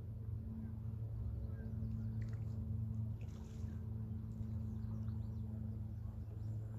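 A steady low hum, like a distant motor, with faint high chirps about two to four seconds in.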